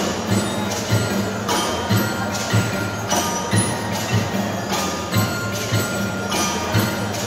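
A percussion band with melodic instruments playing a piece: mallet keyboards such as bell lyres and marimbas, with melodicas, over a steady drum beat at about two beats a second.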